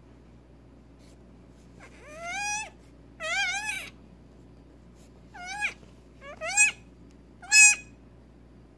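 Newborn Nigerian Dwarf goat kid, about six hours old, bleating five times. The high calls each rise in pitch; the first two are longer and the last is the loudest.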